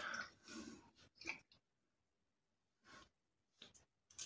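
Near silence, with a few faint short sounds of breathing and of hands on the skin as aftershave splash is patted onto the face.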